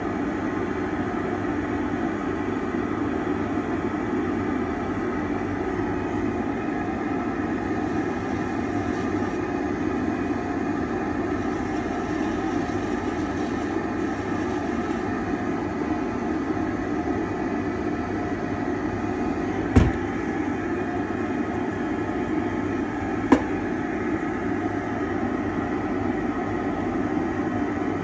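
Dental lab dust-extraction trimming box running with a steady whirring hum while a handpiece bur works on a milled zirconia full-arch bridge. Two sharp clicks about three and a half seconds apart in the second half.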